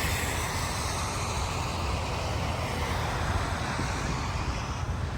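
Steady road noise from traffic passing beside a parked vehicle, a low rumble with broad tyre hiss that eases off near the end, with wind on the microphone.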